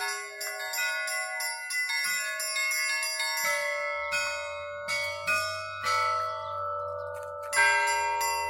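Orthodox church bells rung by hand: small high-pitched bells struck in quick, irregular patterns over a lower bell, all left ringing on. About a second before the end, several bells are struck together loudly and the lower bell sounds again.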